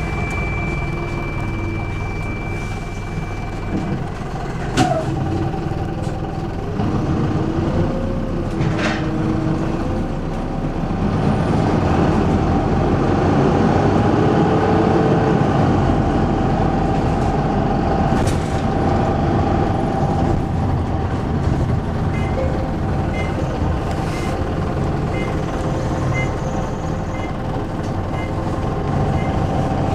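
Optare Solo single-decker bus heard from inside the passenger cabin: its diesel engine runs steadily and rises in pitch twice as the bus accelerates, with body rattles and two sharp knocks. Near the end there is a regular tick about once a second.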